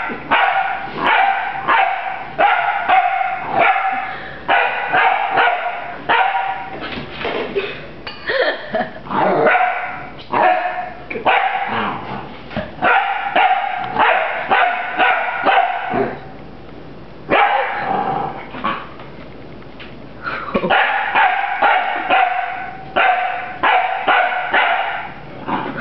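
Bouvier des Flandres puppy barking at a broom, many sharp barks in quick runs, with two short breaks about two-thirds of the way through.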